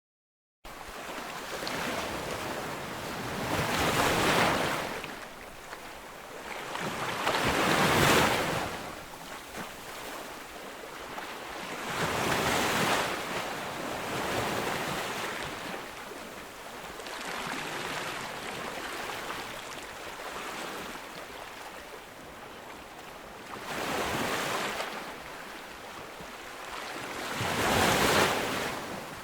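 Ocean waves breaking on a beach: a steady wash of surf that swells into a louder crash every few seconds, with quieter stretches between.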